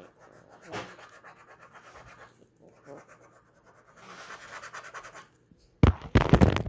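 Handling noise: a phone's microphone rubbing and scraping against clothing as the phone is moved about, with a much louder burst of scraping near the end.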